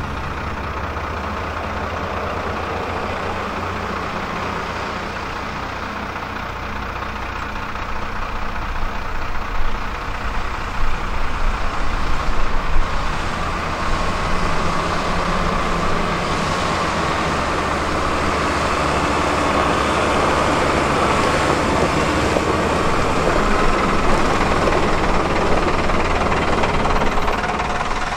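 Heritage bus engine running, growing louder from about a third of the way in, with a steady whine over it through the second half.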